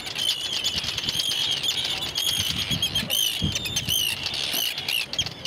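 A colony of seabirds calling overhead: many high, repeated calls, several overlapping at once, over a low rumble.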